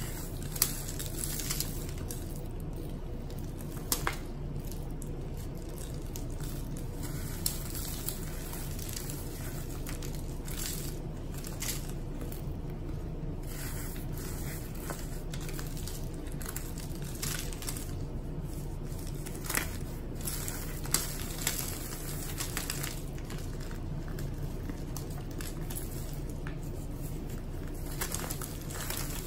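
Bare hands squeezing and crumbling dry, powdery blocks: soft, continuous crunching and crackling with a few sharper cracks, over a steady low hum.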